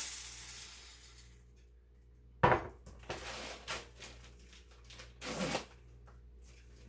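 Kitchen handling sounds: one sharp knock about two and a half seconds in, as of a cup or container set down on a countertop, then a scatter of lighter clicks and rustles as containers and a bag are handled.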